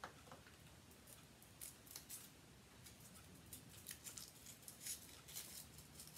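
Faint crinkling of a Hershey's Kiss foil wrapper being peeled off by hand, in short scattered crackles.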